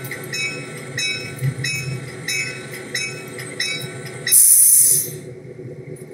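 Diesel locomotive sound effect: the locomotive bell rings about one and a half times a second over the low running of the engine. About four seconds in, a loud burst of air hiss cuts across it, and then the diesel engine runs on.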